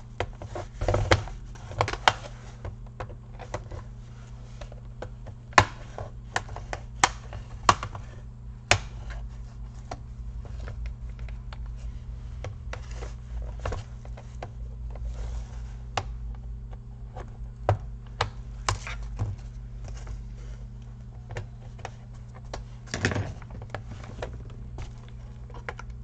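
Irregular sharp clicks and taps of hard plastic as the plastic case and keyboard deck of an HP 250 G5 laptop are handled and worked at with a tool to separate the plastics, over a steady low hum.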